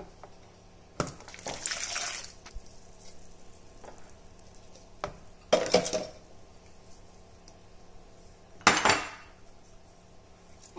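Mixing-bowl handling sounds in short separate bursts: milk poured from a plastic jug into a plastic mixing bowl about a second in, then grated cheese tipped in from a small bowl, and knocks and scrapes of a spoon against the bowl.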